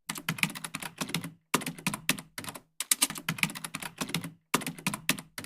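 Rapid typing clicks, like a keyboard or typewriter, in about four quick runs separated by short gaps of dead silence.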